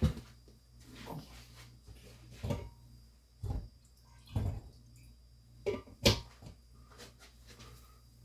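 Scattered short knocks and rustles, about six of them at uneven intervals, the loudest at the very start and about six seconds in, over a low steady hum.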